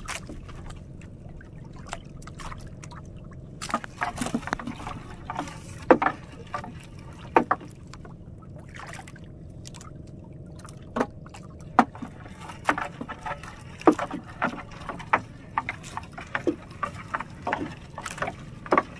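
Wet gill net being hauled by hand over the side of a wooden outrigger boat: water splashing and dripping off the net, with irregular sharp knocks and clatters as it drags over the hull, over a steady low hum.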